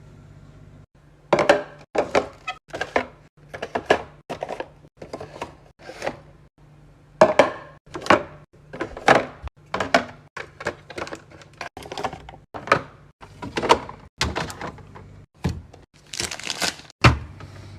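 Containers and jars being set down and shifted on refrigerator shelves: a long uneven string of clunks and knocks, a few a second, over a faint steady low hum.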